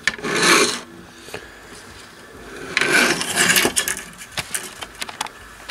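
Handling noise from fingers moving over components on a circuit board: a short rubbing burst near the start, a longer scraping, rattling burst about three seconds in, then a few light clicks.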